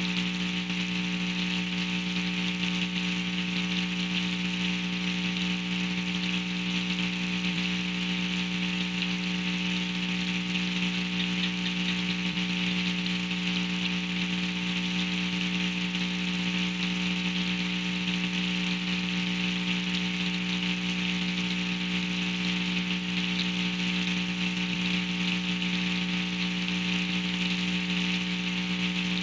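An even hiss of steady rain under a constant low electrical buzz, which is the loudest part and keeps the same pitch throughout.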